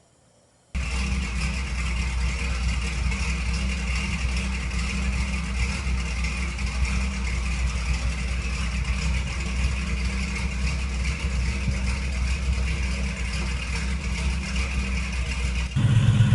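1985 Dodge Ram pickup's engine idling steadily, beginning about a second in. Guitar music comes in near the end.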